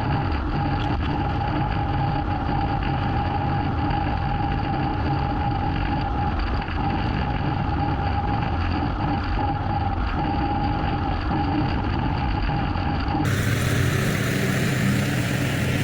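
A small gasoline engine on yard equipment running steadily, with a constant whine over a low rumble. Near the end the sound changes abruptly to a fuller engine noise without the whine.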